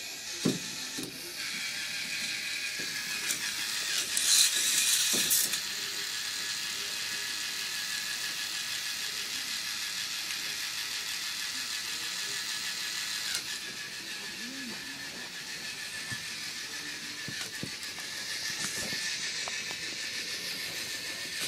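K'nex roller coaster's motor-driven lift running: a steady whir with plastic clatter that starts abruptly at the outset. A louder rattle comes about four to five seconds in.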